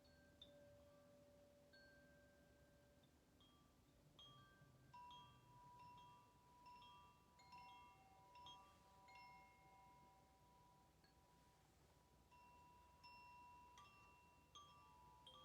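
Quiet chimes ringing: single metal notes at several different pitches struck at irregular moments, each ringing on and overlapping the next.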